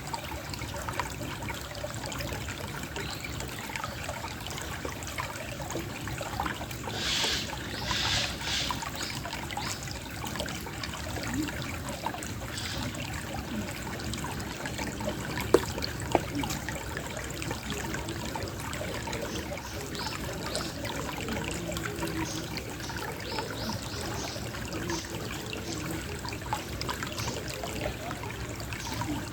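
Water trickling gently and steadily. About fifteen seconds in, an acorn falls with two sharp knocks half a second apart as it hits and rolls. Around seven to eight seconds in there is a brief burst of higher, hiss-like sound.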